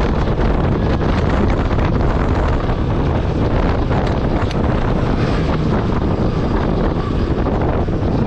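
Steady wind rush buffeting the microphone while riding a KTM RC sport motorcycle at road speed, with the bike's engine and tyre noise running underneath.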